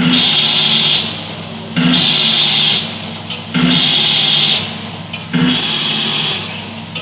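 Automatic volumetric bag-packaging machine running in its production cycle, over a steady low hum. It repeats about every 1.8 seconds, each cycle beginning with a hiss that lasts about a second before dropping away.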